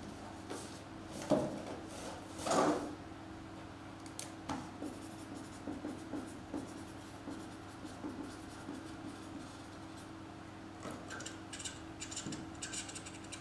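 Cardboard box being handled, with a couple of knocks in the first few seconds. Later a pen scratches as someone writes, with quick scratchy strokes near the end. A steady low electrical hum runs underneath.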